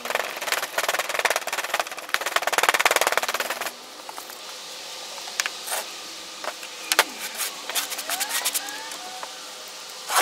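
Fast-forwarded sound of foundry sand being packed by hand into a wooden molding flask. A dense, rapid clatter of knocks and scraping fills the first three and a half seconds, then scattered single knocks follow.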